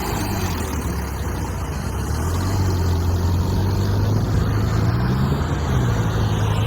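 Heavy diesel engine running under load. Its pitch climbs a little a couple of seconds in and then holds steady.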